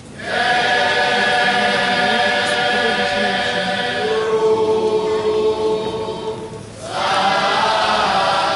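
A choir singing a slow, solemn processional hymn in long held chords. It comes in suddenly, changes chord partway through, and breaks off briefly for a breath before the next phrase.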